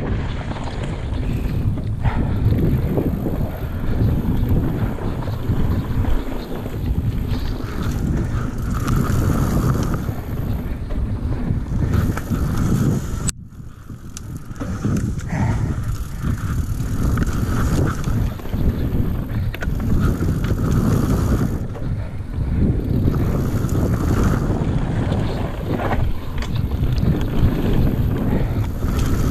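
Mountain bike ridden fast down a dirt flow trail: tyre rumble and bike rattle under heavy wind buffeting on the microphone. About halfway through there is a sharp click and the noise drops off briefly as the bike leaves the ground on a jump, then builds back after the landing.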